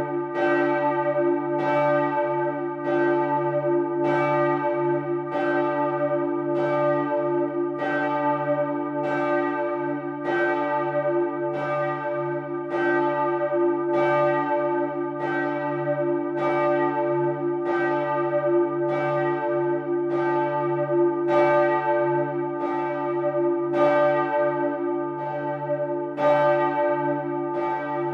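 Large church bell of Bremen Cathedral swinging in full peal, its clapper striking in a steady, even rhythm. Each stroke rings on and fades, over a steady low hum.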